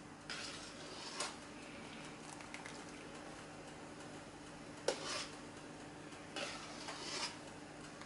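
Small metal strainer ladle clinking and scraping against a stockpot and a bowl while scum is skimmed off boiling beef broth: a few scattered clinks, the sharpest about five seconds in, over a steady faint low hum.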